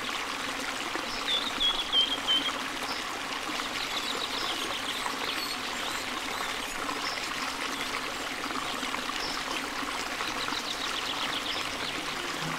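Marinated chicken strips sizzling and crackling steadily in hot oil in a non-stick wok over a high flame, with a wooden spatula stirring and scraping the pan now and then.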